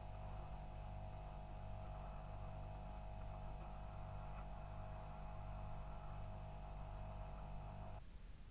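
Steady low electrical hum with a thin higher whine above it, holding level and cutting off suddenly near the end.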